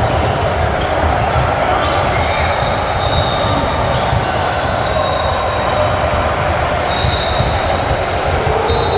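Basketball game in a large gym: a steady background of many voices and play echoing in the hall, with sneakers squeaking on the hardwood court several times and a basketball bouncing.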